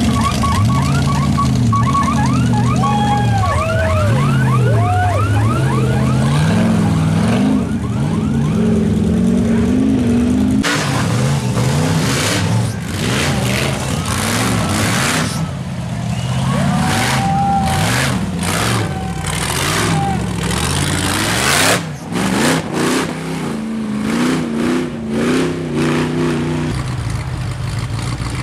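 Off-road competition buggy's engine revving up and down in uneven waves under heavy throttle as it climbs a muddy hill. About ten seconds in, the sound turns choppy, with short irregular bursts of throttle and noise, before a steadier engine note returns near the end.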